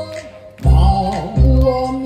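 Live music fusing Korean traditional song with K-pop: held melody tones over a deep bass beat that hits twice in the second half.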